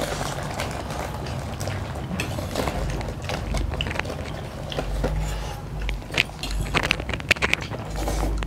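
Eating at a table: forks clicking and scraping on steel plates, with noodles being slurped and chewed. A few dull low thumps come in during the second half.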